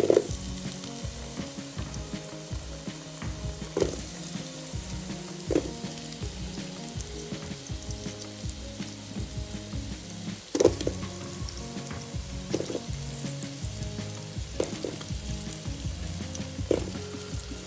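Raw potato chunks dropped one by one into a pan of onions frying in hot oil. The oil sizzles steadily, and each piece lands with a sharp knock about every two seconds, seven or so in all.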